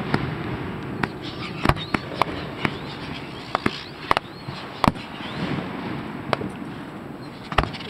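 Fireworks going off: about a dozen sharp bangs at irregular intervals, the loudest near two seconds in, near five seconds and near the end, over a steady background hiss.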